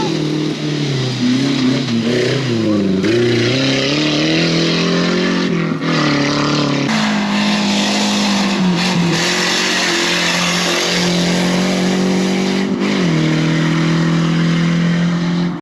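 Off-road 4x4 race vehicle engines at full effort, the pitch rising and falling with gear changes and throttle, then holding a steady high note. The audio jumps abruptly several times as short clips are cut together.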